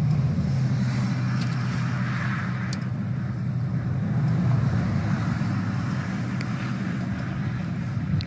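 A car running, a steady low hum with a hiss on top.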